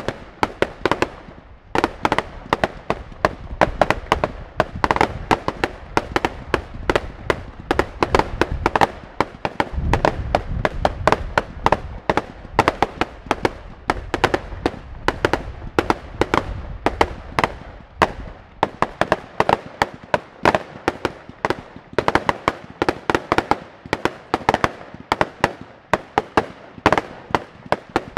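Fireworks going off in rapid, dense succession: many sharp bangs and crackles overlapping, several a second, with a deep rumble underneath through the middle stretch.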